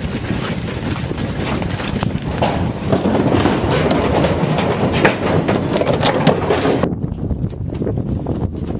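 Bison being loaded into an aluminium cattle semi-trailer: a dense clatter of hooves knocking and banging on the metal chute and trailer floor, over a steady rumble. About seven seconds in, the sound turns duller.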